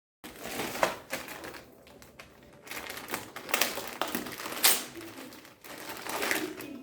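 Handling noises: an irregular run of clicks, knocks and rustles, with sharper, louder ones about a second in, twice between three and five seconds, and once past six seconds.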